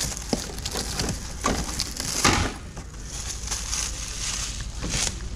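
Clear plastic wrapping around an RC car body crinkling and crackling as it is handled, in irregular bursts, loudest a little past two seconds in.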